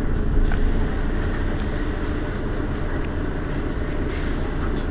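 Mercedes-Benz Citaro city bus engine idling steadily as the bus stands at a stop.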